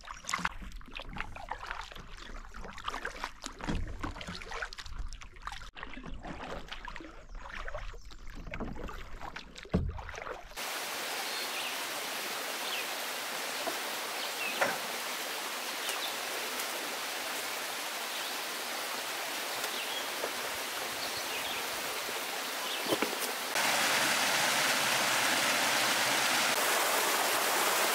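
Irregular knocks, rumbles and splashing beside a canoe as a fish is handled over the water. Then a steady rush of running water, which gets louder near the end as a small woodland cascade pours over rock.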